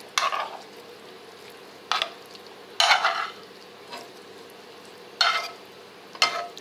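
A metal spoon scraping across a frying pan, pushing cooked chicken, onion and bell pepper out into a pot of potatoes: about six short, uneven scrapes, the longest near the middle.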